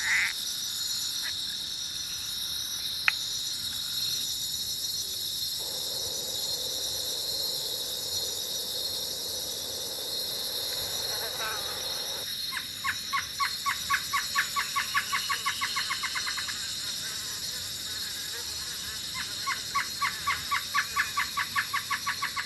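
Theme-park jungle ambience loop of strange insect and animal calls: a steady high insect chorus throughout, a low droning note for several seconds in the middle, then two runs of rapid pulsed calls, a few seconds apart.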